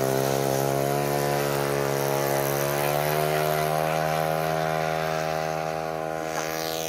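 Radio-controlled de Havilland DH.60 Moth floatplane model's motor and propeller running steadily on its takeoff run across the water. The pitch rises slightly in the first second or so, then holds, and the sound grows a little fainter near the end as the model moves away.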